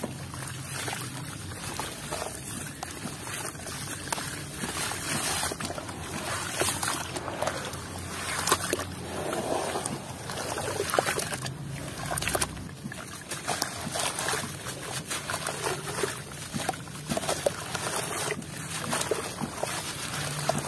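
Hands crumbling dry, gritty sand blocks into a plastic tub of water and stirring the muddy water: irregular sloshing and splashing, with crumbs and grains dropping into the water.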